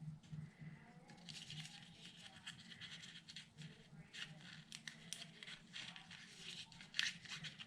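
Faint, scattered rustling and light scratching of thin die-cut cardstock letters being handled, lifted and pressed onto a paper scrapbook page.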